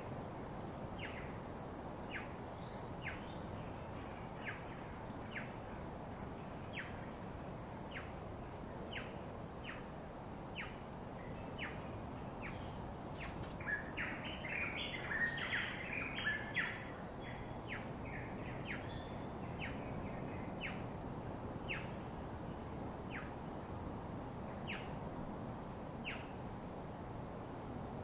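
Birds calling: a short, sharp high note repeated about once a second, with a burst of busier chattering calls in the middle. Underneath runs a steady low rushing background and a thin, constant high whine.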